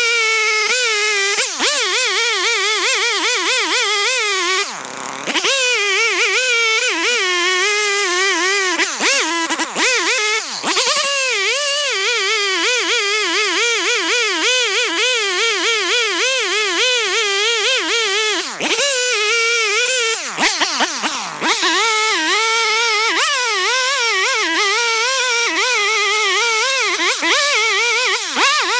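Stihl two-stroke chainsaw running at high revs while cutting into a tree trunk, its pitch wavering constantly under load. The revs fall away briefly a few times.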